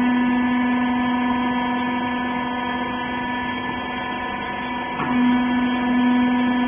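Baler's electric motor and hydraulic pump running with a steady pitched hum. A brief click about five seconds in, after which the hum is slightly louder.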